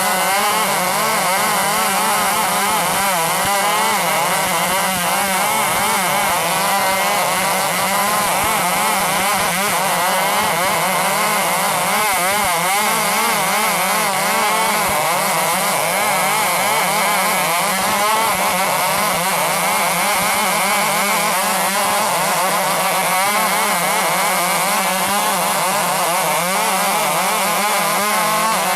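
Large 105cc two-stroke chainsaw running under load while ripping a log into boards, its engine speed wavering up and down as it cuts without a break.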